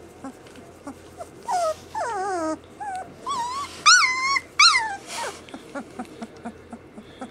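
Samoyed puppies whimpering and yelping: a string of high-pitched cries that fall and waver in pitch, loudest about four seconds in, mixed with blanket rustling, then a run of soft little clicks.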